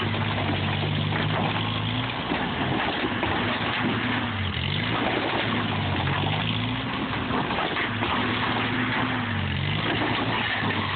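Tractor engine running under load, working to lift and shove a camper trailer, its pitch dipping and rising again several times as it revs.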